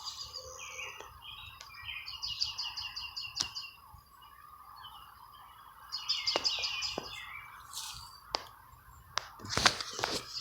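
A songbird singing in short bursts of rapid repeated chirps, with a few sharp clicks near the end.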